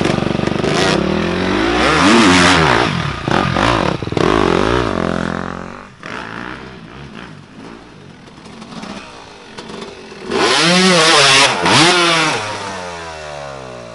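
Dirt bike engines revving hard and backing off, the pitch climbing and falling over and over through the first half. They drop quieter, then rev up in a second strong burst near the end.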